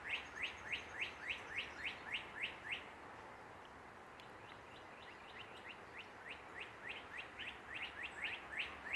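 Birds in a tree calling: a rapid series of short, sharp whistled notes, each sliding downward, about three a second. The series stops about three seconds in and starts again a couple of seconds later, a little faster.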